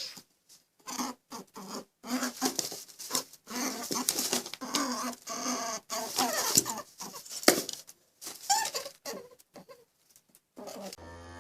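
Short, irregular animal calls mixed with scrabbling noises, in quick bursts with brief gaps.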